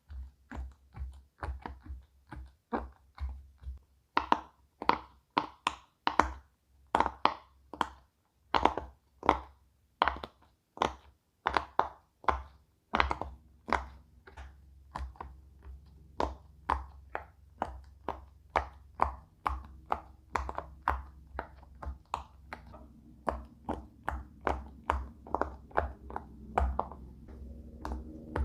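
Silicone pop-it fidget toy bubbles being pressed down one by one, each giving a short pop, at a steady pace of about two to three a second. A faint low hum comes in near the end.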